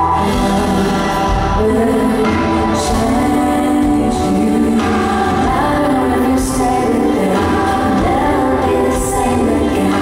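Pop song played live: a woman's singing voice comes in at the start, over sustained keyboard chords and band backing.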